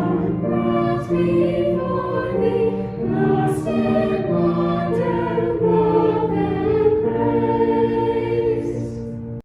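A choir singing a slow hymn in sustained notes, cutting off abruptly near the end.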